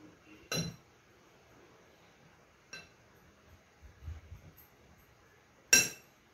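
A metal spoon clinking against a plate while stirring chopped mango with spices: three sharp clinks, the loudest near the end, with a few soft knocks in between.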